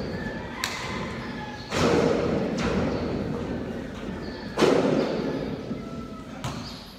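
Basketball thumps on a concrete court under a metal roof: about five sharp hits, the two loudest about two and five seconds in, each followed by a long echo.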